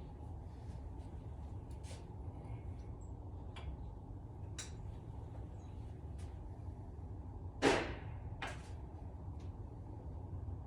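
Light clicks and taps of parts and tools being handled while rod bearings go into a small-block engine. A sharp clack comes about three-quarters of the way through, then a smaller one, over a steady low hum.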